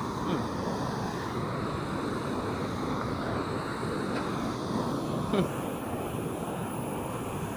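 Steady rush of turbulent water pouring through a weir floodgate, with a brief short sound about five and a half seconds in.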